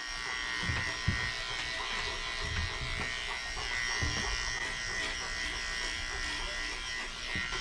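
Electric dog-grooming clippers with a No. 7 blade buzzing steadily as they shave through a Newfoundland's thick belly coat, with a few soft low thumps.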